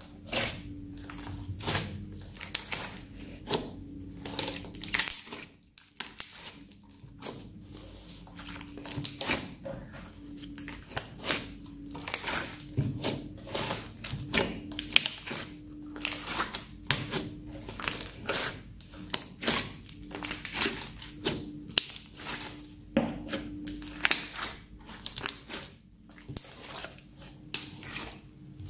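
Hands kneading, pressing and folding a thick glitter slime packed with water balls and sequins. It gives irregular wet crackles and pops several times a second as air pockets in the slime burst.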